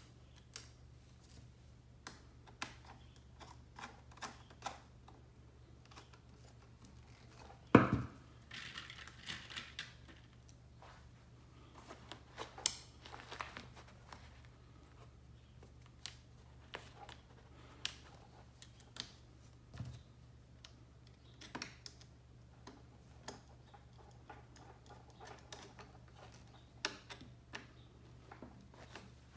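Scattered light clicks and taps of small screws and a flat-head screwdriver being handled and worked against a rigid MOLLE panel, with one louder knock about eight seconds in.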